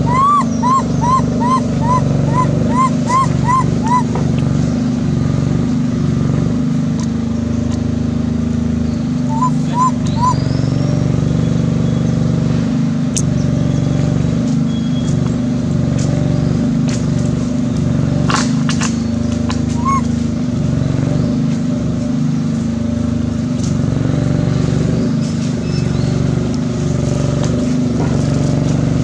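A steady low motor-like drone, with a quick run of about ten short rising chirps in the first four seconds and three more about ten seconds in.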